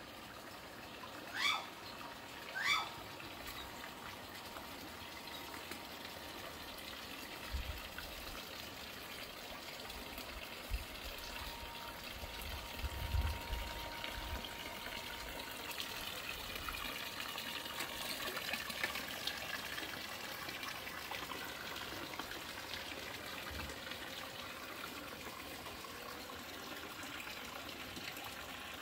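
Steady trickle of water running into a swimming pool, circulated by a solar-powered pool pump. Two short rising chirps sound near the start, and a few low thumps come midway.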